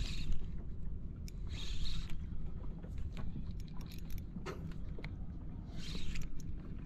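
Light clicking of a Shimano Stradic 1000HG spinning reel being wound while a micro jig is worked, over a steady low rumble of wind on the microphone. Short splashy rushes of water against the boat come about every two seconds.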